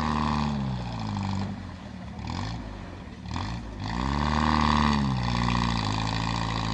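Off-road vehicle engine revved up and down in short bursts, then held at higher revs from about four seconds in, as the vehicle struggles to move through the icy river.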